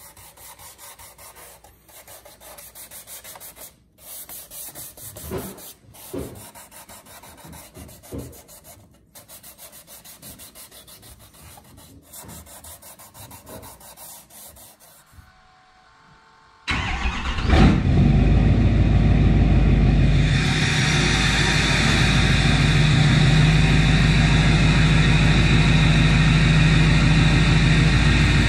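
Quiet rhythmic rubbing strokes of a hand pad sanding the painted plastic tow mirror housing, working down a clear coat that wrinkled. About 17 seconds in, the engine of a Duramax diesel pickup comes in loud and runs steadily.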